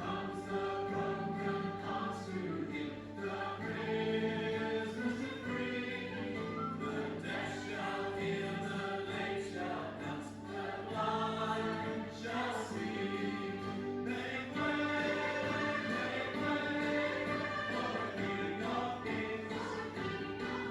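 A choir singing a piece of church music in held, chordal notes.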